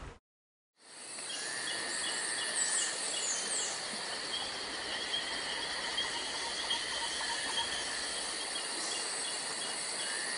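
Nature ambience fading in after a brief silence: a steady chorus of insects with a regular chirp about three times a second, and a few high bird calls about two to three seconds in.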